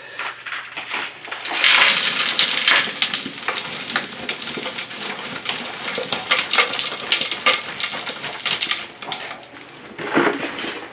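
Loose dirt being shoveled back into a trench: a shovel scraping and soil pouring down in a gritty rattle that starts about a second and a half in, with another burst near the end.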